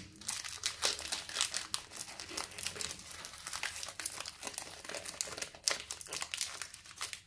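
Foil wrapper of a Pokémon trading-card booster pack crinkling continuously in the hands as it is torn open and worked apart, a dense run of irregular crackles.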